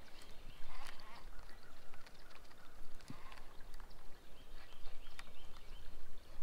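Bird calls: short calls repeated in small groups, over a faint outdoor background with a few light clicks.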